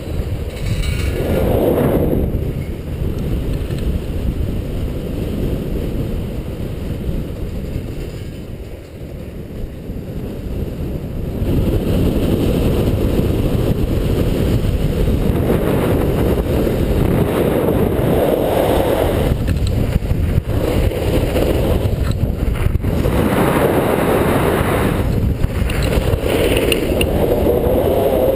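Wind rumbling over the microphone of a GoPro held low to the snow, mixed with the hiss and scrape of an alpine snowboard's edge carving through groomed snow. It swells every few seconds and eases off for a few seconds about a third of the way in.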